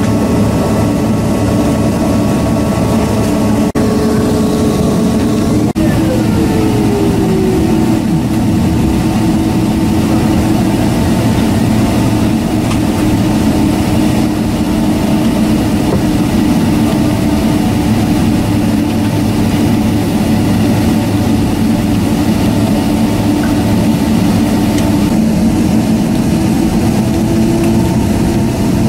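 Steady hum of an airliner's jet engines heard inside the cabin while taxiing. About six seconds in, one tone falls in pitch.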